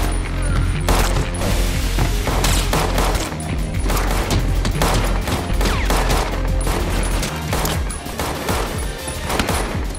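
Rapid, repeated gunshots in quick strings, mixed over an electronic dance track with a steady heavy bass.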